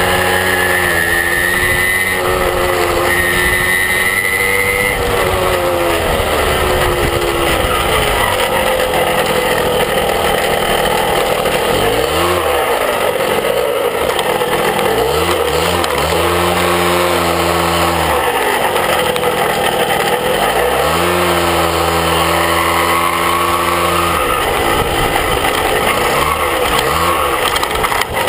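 Small motorbike engine running under way, its pitch rising, holding and dropping again about three times in the second half as the throttle is opened and eased, with wind noise on the microphone throughout.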